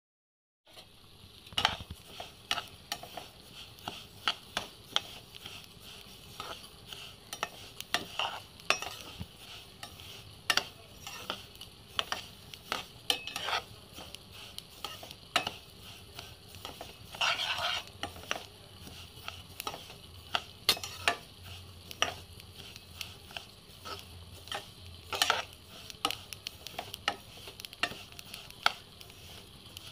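Metal spatula stirring and scraping sesame seeds around a pan, a steady scratchy hiss broken by frequent irregular clicks and taps of the spatula against the pan.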